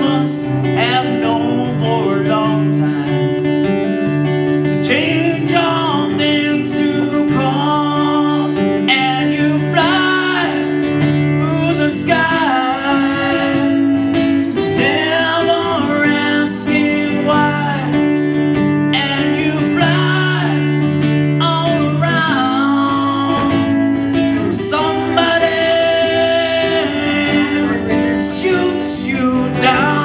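A man singing with an acoustic guitar accompaniment, live.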